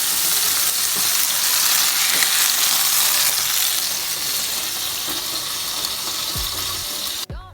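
Rump steak sizzling steadily in a hot pan, cutting off abruptly just before the end.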